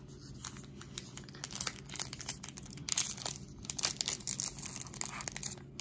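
Plastic wrapper of a sealed 1993 Score baseball card pack crinkling in the hands as it is worked open at its sealed edge, with irregular crackles throughout.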